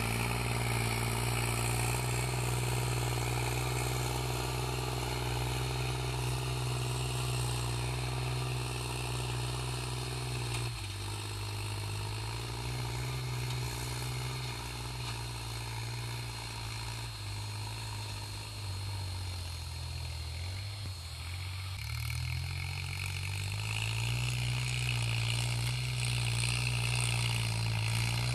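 Kubota L3608 tractor's diesel engine running steadily while pulling a disc plough through the soil. Its pitch sags and wavers through the middle stretch and picks back up near the end.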